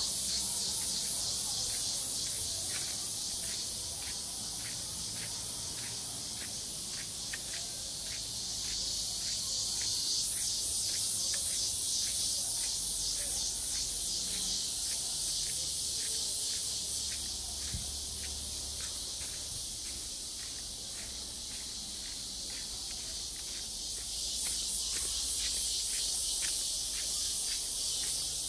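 A steady, high-pitched chorus of insects in tropical woodland, shrilling with a regular pulsing rhythm.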